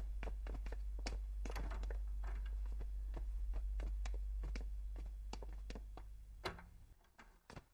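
Footsteps of two people walking across a hard office floor, about two or three steps a second, over a low steady hum that fades out near the end. A sharper click from the glass office door comes near the end.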